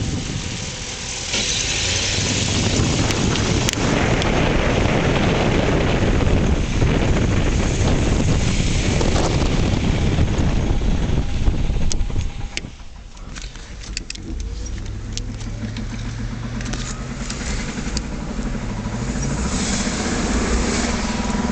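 1996 Range Rover P38 driving at road speed with a humming, whirring drivetrain noise from the rear that rises and falls with road speed, not engine speed; the owner suspects a failing rear differential, with a viscous coupling, drive shaft or wheel bearing as other possibilities. About halfway through the sound drops off sharply, then builds back up.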